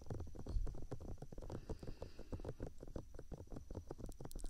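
Fingertips tapping and rubbing on the ears of a HeadRec Binal2 binaural microphone, a quick run of soft, dull taps, several a second.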